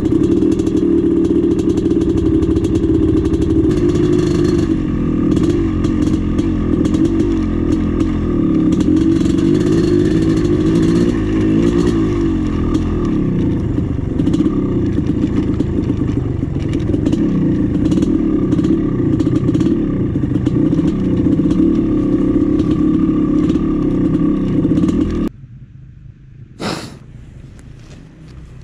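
Dirt bike engine running steadily under riding load; it stops abruptly about 25 seconds in, leaving a quieter background with one brief sharp high sound.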